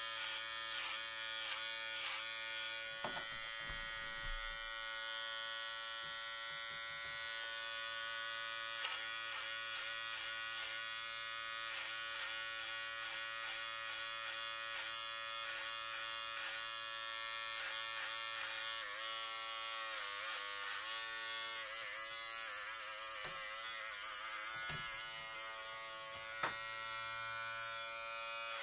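Electric hair clippers cutting hair, their motor buzzing steadily. The pitch wavers and dips a little past the middle, with a few light clicks along the way.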